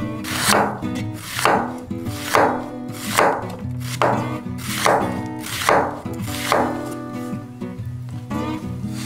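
Chef's knife slicing through an onion onto a wooden cutting board: about eight crisp cuts, roughly one a second, ending about two-thirds of the way through, over background music.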